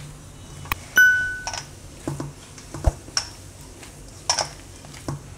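A single bright ding about a second in, ringing briefly, is the loudest sound. Around it come soft clicks and scrapes of a hand mixing soaked sabudana and paneer dough in a stainless steel bowl.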